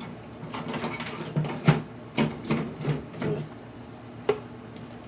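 Hands rummaging through a box or drawer of cables and adapters: an uneven run of clacks and knocks as hard objects are moved and bump together, with one sharp knock near the end.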